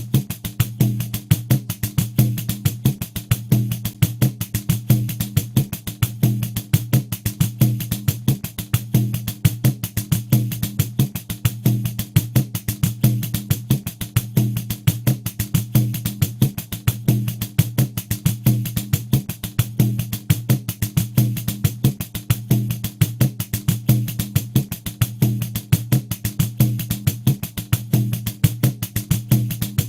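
Pandeiro, the Brazilian jingled frame drum, playing a steady loop at 90 BPM: a quick, even stream of jingle strokes over deep, resonant skin tones, unchanging throughout.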